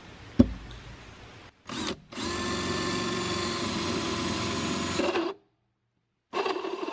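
Cordless drill with a hole saw cutting through plywood: after a sharp knock, a short trigger blip, then the drill runs steadily for about three seconds and stops. It starts up again near the end.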